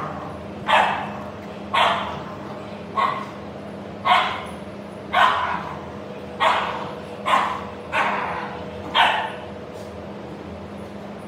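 A dog barking about nine times, roughly once a second, each bark sharp and loud and fading quickly, over a faint steady hum.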